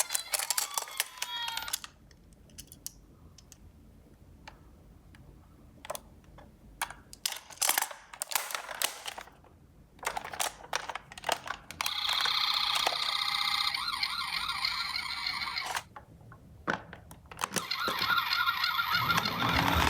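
Small plastic clicks and taps of toy ambulance minicars being handled, then a toy ambulance's electronic siren sounding steadily for about four seconds and stopping. After a few more clicks, another wavering toy siren starts near the end.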